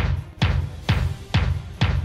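Bass drum of the Energizer Bunny beaten in a steady march beat, about two strokes a second, each stroke a deep thump with a sharp attack.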